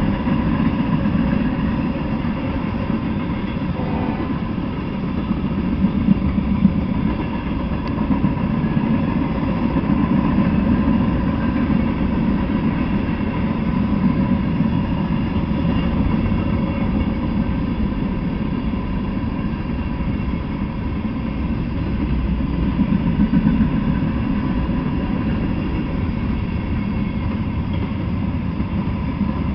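Freight train of covered hoppers and tank cars rolling past at speed: a steady, loud rumble of steel wheels on the rails, with a faint steady hum above it.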